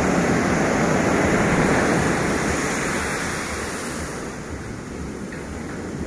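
Ocean surf breaking and washing up a sandy beach: a steady rush of foaming water, fullest in the first few seconds and then easing a little as the wash draws back.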